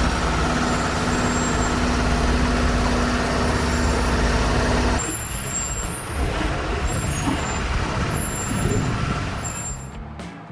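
Heavy truck engine running steadily. About halfway through it cuts abruptly to a quieter engine sound with faint high chirps, which fades near the end.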